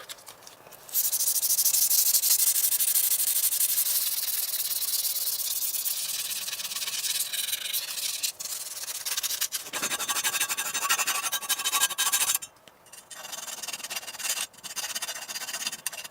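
Sandpaper rubbing against a diecast model car's metal body: a steady, scratchy sanding sound that starts about a second in and breaks off briefly a few times.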